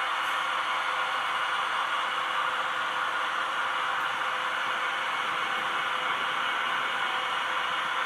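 Steady rushing hiss of a freight train rolling past, with a few faint steady tones and no change or break.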